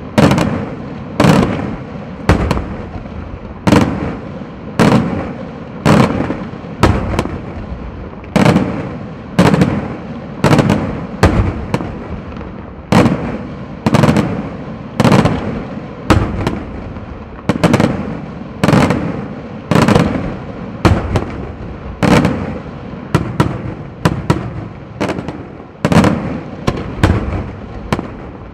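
Daytime fireworks display: a long run of loud aerial shell bursts, about one bang a second, each trailing off, with lighter cracks between them.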